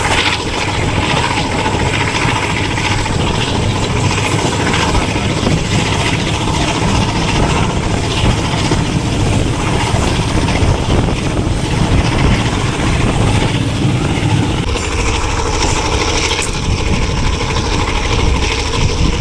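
Passenger train running at speed behind a ZCU-30 diesel-electric locomotive: a steady loud rumble of the train's wheels on the rails and the locomotive's engine working.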